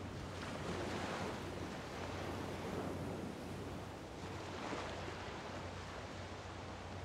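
Small bay waves washing onto the shore in two slow surges. A low steady hum runs underneath.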